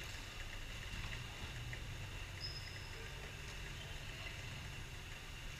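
Indoor sports hall ambience: a steady low hum, with a few faint ticks and one brief high-pitched squeak about two and a half seconds in.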